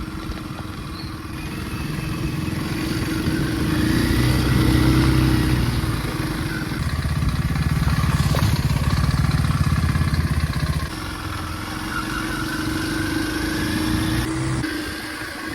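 Motorcycle engine running as the bike rides off, its note building over the first few seconds, staying strong through the middle and easing off about two-thirds of the way in.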